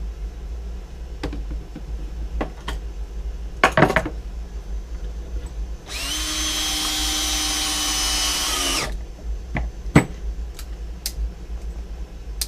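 A power drill runs at a steady speed for about three seconds, in the middle, with sharp knocks and clicks of handled wood and tools before and after it.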